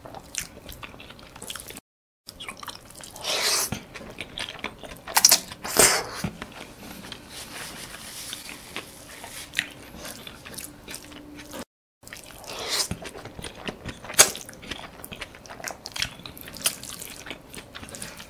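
Close-miked wet chewing and mouth sounds of a person eating saucy fried noodles, with soft clicks and squishes from fingers picking through the noodles on a wooden board. The sound cuts out completely twice for a moment.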